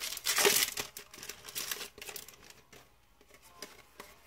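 Yu-Gi-Oh booster pack's foil wrapper crinkling and tearing open, loudest in the first second. Softer rustles and flicks follow as the cards are pulled out and handled.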